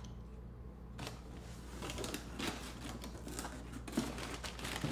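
A cardboard box being opened by hand: flaps pulled apart and the packing inside rustled, a busy run of small crackles and scrapes starting about a second in.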